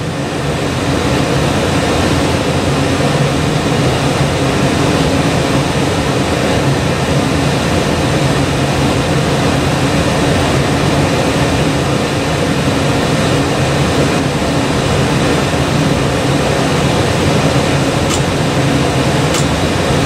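York gas furnace running on a heating cycle, burners lit with the inducer motor and main blower going: a steady rushing hum. Two faint clicks come near the end.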